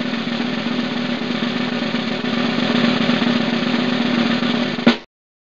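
Snare drum roll, swelling slightly partway through and ending on one sharp hit before cutting off abruptly.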